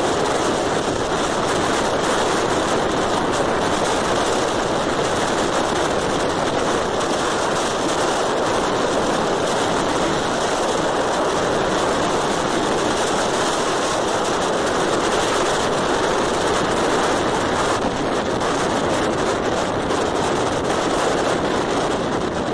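Steady rush of wind and road noise from a vehicle travelling at speed, even and unbroken throughout.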